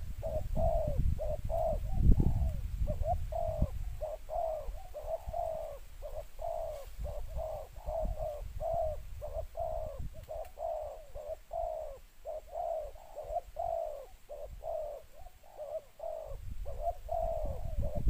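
Spotted doves cooing: an unbroken run of short, repeated coos, a few notes a second. A low rumble sits underneath during the first few seconds and again near the end.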